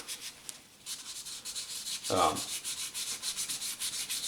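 Wet sandpaper rubbed by hand over an aluminium heat sink in quick, even back-and-forth strokes, a few a second, with one brief louder low sound about two seconds in.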